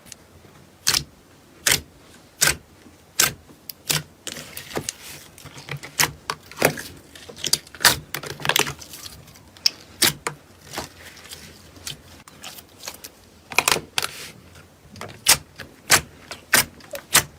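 Slime being pressed and kneaded, giving sharp clicking pops as trapped air bubbles burst, about one a second at first, then irregular and bunched together, with a faint soft squish between them.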